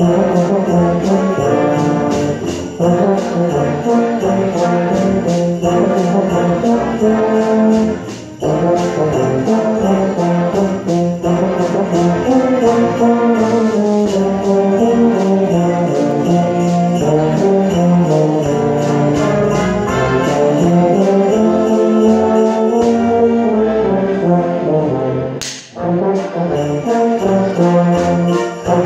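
Concert band playing a Christmas pop medley, the brass section leading with the tuba close by and jingle bells shaking in rhythm. Near the end the music drops out briefly with a sharp click.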